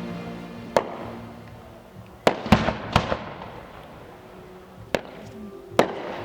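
Fireworks display: six sharp shell bursts, three of them in quick succession near the middle. Each bang trails off into fading crackle and echo.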